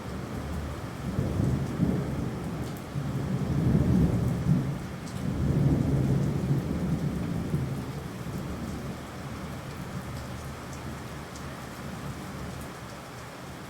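Steady rain with a long rolling thunder rumble that builds about a second in, swells several times over the next few seconds, and fades out well before the end, leaving the rain alone.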